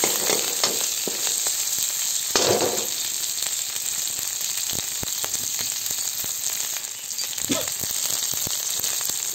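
Tempering frying in hot oil in a metal kadai: mustard seeds, dried red chillies, green bird's-eye chillies and curry leaves sizzling steadily with scattered crackles, stirred with a wooden spatula in the first seconds.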